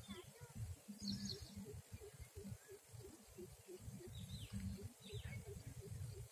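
Outdoor ambience at a lake: a low, gusty rumble of wind on the microphone, with faint short downward-sweeping bird chirps a few times, including a brief higher chatter about a second in.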